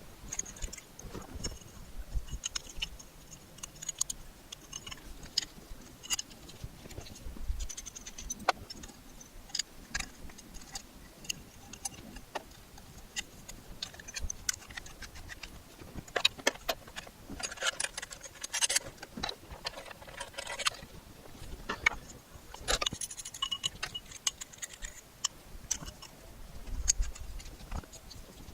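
Scattered light clicks, taps and metallic jingling, with a few short scraping passes past the middle, like hand work on metal electrical fittings.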